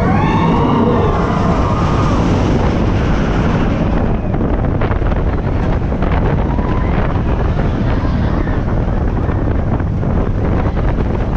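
Roller coaster train running fast along its track, with heavy wind rushing over the action camera's microphone and a steady rumble. Riders yell in the first couple of seconds, and the wheels rattle on the track.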